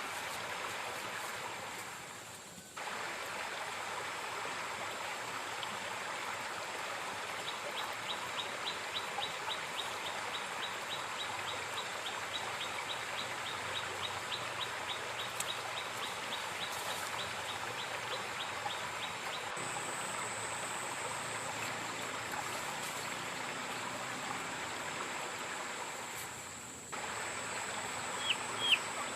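River water rushing and gurgling steadily over rocks, with brief dips near the start and near the end. Over it run a thin steady high-pitched drone and, for several seconds in the middle, a rapid series of high chirps from a small creature.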